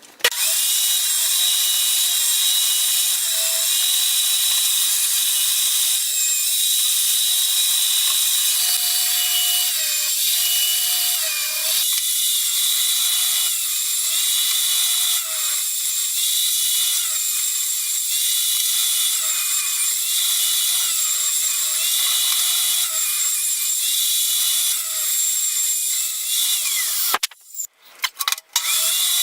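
Table saw running and cutting a shallow cove in a board, its steady tone dipping briefly in pitch every second or two under the load of the cut. Near the end it briefly drops out, then runs again.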